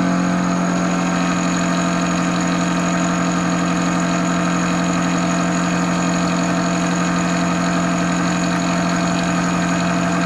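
Sherline CNC mill cutting steel with a quarter-inch four-flute carbide end mill at 2700 RPM and a 4 inch-per-minute feed, making a loud, steady cutting tone over the spindle motor.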